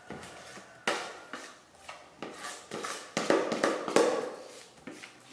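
Irregular scrapes and taps of a plastic spatula working against the inside of a plastic mixing bowl as cake batter is pushed out into a baking pan, with a cluster of louder knocks about three to four seconds in.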